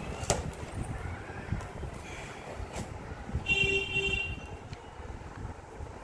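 A vehicle horn honks twice in quick succession about three and a half seconds in, the loudest sound. Under it, clicks and scraping of a utility knife cutting packing tape on a cardboard box.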